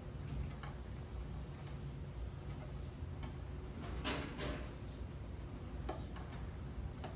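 Masking tape being picked and peeled off a freshly painted panel: scattered short rasps and ticks, the longest rip about four seconds in, over a steady low hum.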